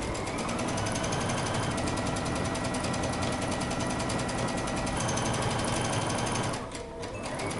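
Electronic domestic sewing machine stitching a seam in knit fabric, running at a steady fast pace with rapid even needle strokes. It eases off briefly near the end, then runs on.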